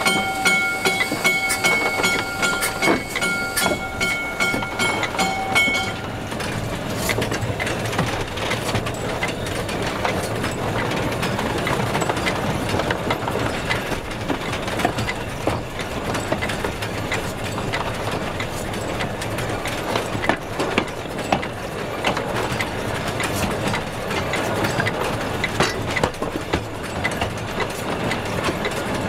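Steam locomotive Spreewald under way. Its whistle sounds one steady, chord-like blast that stops about six seconds in. After that come the continuous rattle and clicking of its running gear and wheels on the track.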